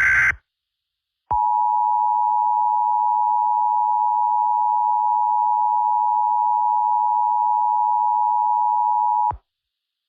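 The tail of an Emergency Alert System SAME header data burst, then the EAS two-tone attention signal (853 and 960 Hz sounded together). The dual tone is steady and harsh, holds for about eight seconds and cuts off sharply.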